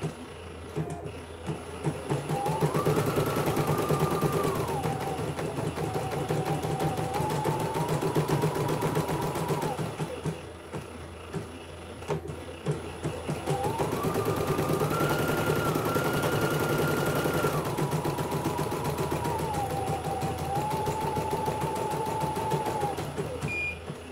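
CNY home embroidery machine stitching a design, a rapid needle chatter with a motor whine that steps up and then back down in pitch, twice over. Near the end the stitching stops and the machine beeps, the signal for a thread colour change.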